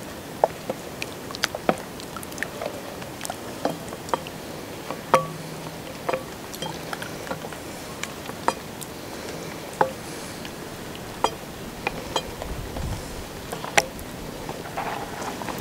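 A large metal pot of soup being stirred with a long spatula, giving irregular sharp clicks and knocks over a low steady hiss.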